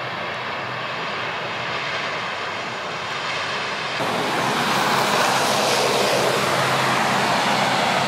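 Steady outdoor hiss and rumble that changes abruptly about halfway through to a louder, brighter hiss.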